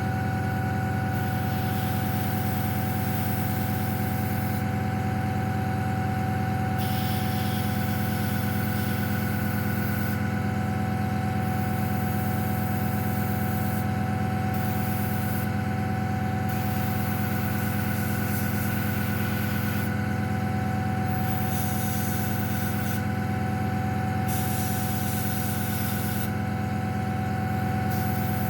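Airbrush spraying paint, its air hiss starting and stopping every few seconds as the trigger is pressed and released, over a steady motor hum.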